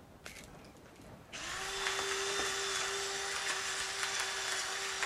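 Electric salt-and-pepper grinder running over a salad bowl, its small motor starting about a second in and then running steadily with a constant whine and hiss.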